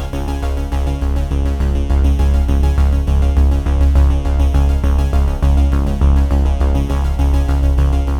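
Electronic background music: synthesizer track with a heavy steady bass and a repeating pattern of notes.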